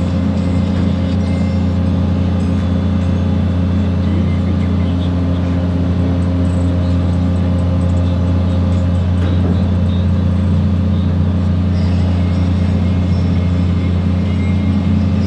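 Heavy diesel engine of a Demag AC 300 mobile crane running steadily at constant speed, a low even drone with no change through the stretch.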